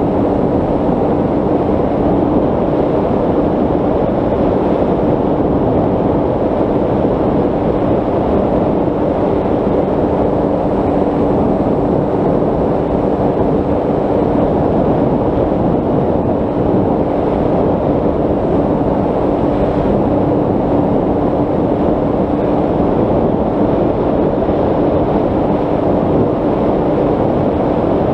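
Steady rush of airflow over the onboard camera of a Bixler 3 RC plane in flight, with the faint even hum of its electric motor and propeller running at constant throttle.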